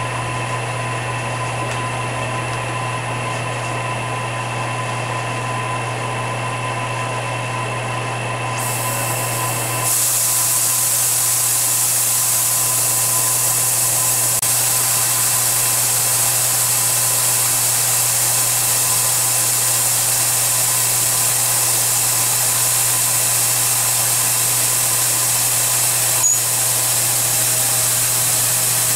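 CNC milling machine spindle running with a steady hum and a faint whine. About ten seconds in, a loud steady hiss from the coolant nozzle's blast starts and carries on as the end mill begins cutting the copper plate. One short click near the end.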